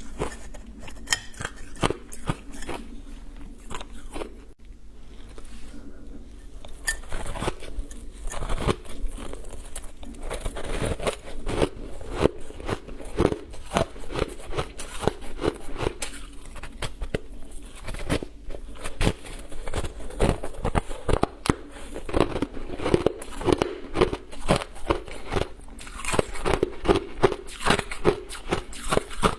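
Close-miked crunching of ice being bitten and chewed. The crunches are sparse at first, then come quickly and steadily as the chewing picks up partway through.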